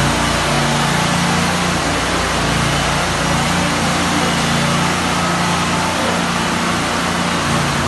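Terminator T2500 Pro ride-on floor scraper running steadily on its propane-fuelled engine, with its front blade scraping carpet and backing up off a concrete floor.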